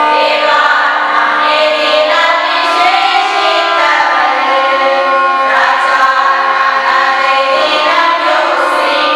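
A group of women singing a Tamil Christian song together.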